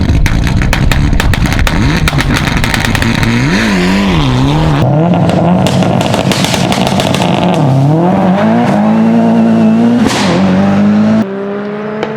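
Performance car engine revving up and down with its exhaust popping and crackling in rapid strings of backfires. Near the end it drops to a quieter engine note rising steadily in pitch.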